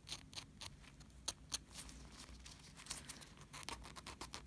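A narrow stick file rubbing against a cured acrylic-gel nail tip in short back-and-forth strokes, refining the curves of the sculpted tail. The strokes are spaced out at first and come quicker and more evenly near the end.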